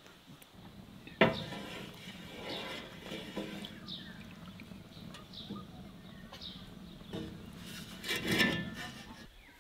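A wooden spoon stirring fresh sheep milk in an aluminium pot: a sharp knock of the spoon against the pot about a second in, then gentle swishing of the milk. A louder animal call comes near the end.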